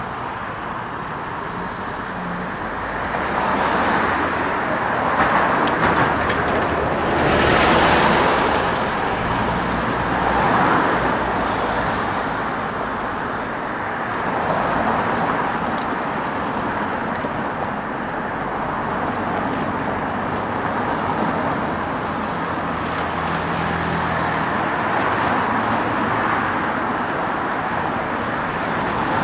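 Road traffic: cars passing close by, with a steady background of engine and tyre noise. The loudest pass comes about seven to eight seconds in, and smaller ones follow.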